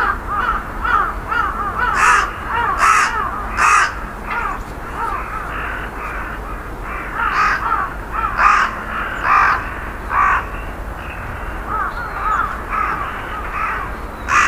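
Crows cawing repeatedly: loud harsh caws about a second apart in two spells, over runs of quicker, shorter calls several a second.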